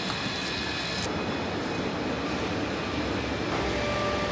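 Factory machinery running with a steady mechanical noise and whine. A set of high whines cuts out about a second in, and a lower hum comes in near the end.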